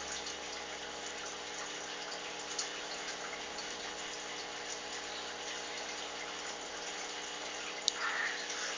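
Steady hiss of room noise with a faint low hum. Near the end comes a single click, then a short breathy sound.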